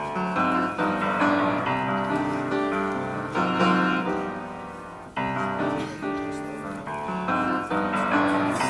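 Piano playing the introduction to a choir song: chords struck and left to ring and fade, with a short break about five seconds in before the next phrase begins.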